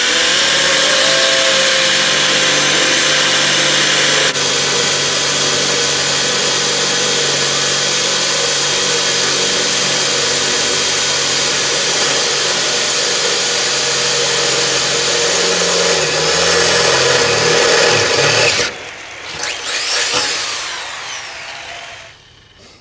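Handheld electric drill running at speed as it bores a mounting hole through a Fisher straight plow blade: a loud, steady whine. The drill stops abruptly about 19 seconds in, then gives a shorter whir that winds down.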